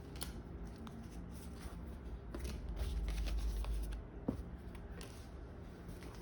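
Pokémon trading cards being handled, slid against one another and sorted, with scattered light clicks and taps.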